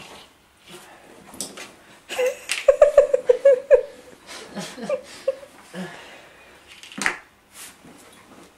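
A man laughing: a run of short, rapid chuckles for about two seconds, starting about two seconds in, with a few quieter ones after. Under it are rustling and a couple of sharp clicks.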